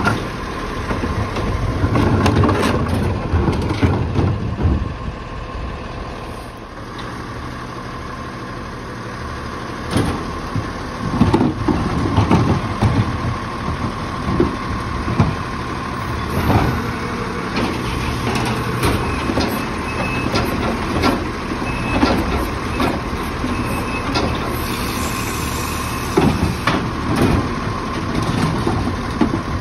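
Split-body Autocar ACX garbage truck running, with a steady high whine over the engine. Repeated bangs and clatter come in clusters every few seconds.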